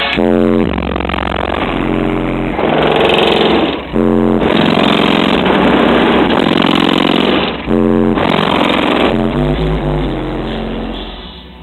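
Two Soundqubed HDX3 18-inch car subwoofers playing loud bass music, heard from outside the car. Deep bass notes step in pitch and alternate with harsh, distorted stretches, and the sound drops off near the end.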